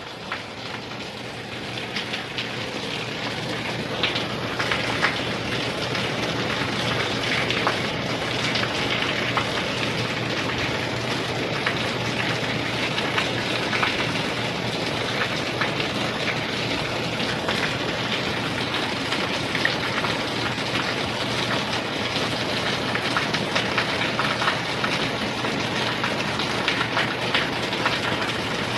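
Steady rain falling, with many separate drops ticking on a surface. It swells over the first few seconds, then holds steady.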